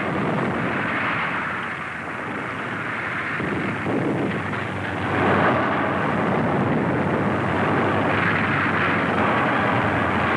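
Wartime battle soundtrack: a continuous rumble of aircraft engines and explosions, growing louder about five seconds in.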